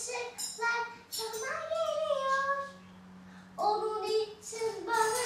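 A child singing a melody in short phrases, with some long held notes and brief pauses between phrases.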